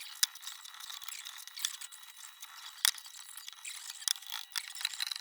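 Light scraping with scattered sharp clicks as small metal kerosene-heater parts are handled and worked by hand; the loudest click comes a little past halfway.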